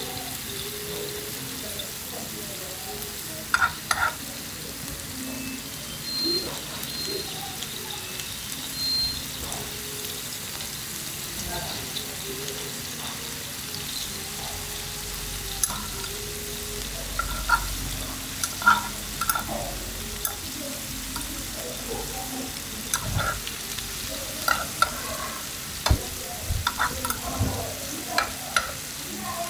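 Meat, shrimp and vegetables sizzling on a hot griddle tray, with a steady hiss. Metal tongs click and scrape against the pan now and then, more often in the second half.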